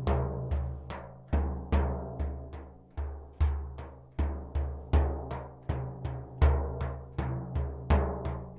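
A deep drum beaten in a steady rhythm, about two to three strokes a second. A heavier stroke falls about once a second, each booming low and ringing out.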